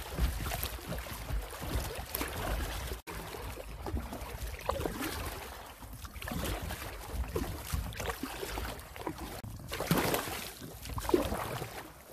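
Water splashing and slapping against an inflatable kayak's hull as it runs through choppy water, with a low wind rumble on the microphone. This cuts off sharply about three seconds in, leaving softer splashes and trickling on calmer water.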